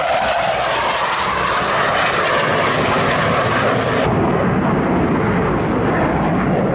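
Loud, steady jet engine noise from Blue Angels F/A-18 Hornets flying past. About four seconds in, the high hiss cuts off abruptly, leaving a duller engine sound.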